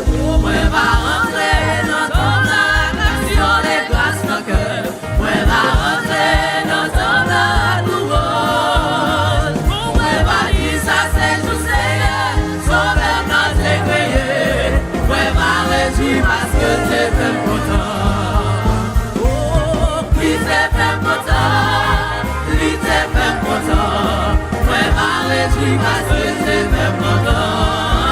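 Church choir singing a gospel worship song with live band accompaniment and a strong bass line.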